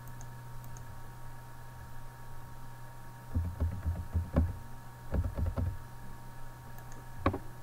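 Computer keyboard and mouse clicking on a desk: two short runs of taps, then a single click near the end, over a steady low electrical hum.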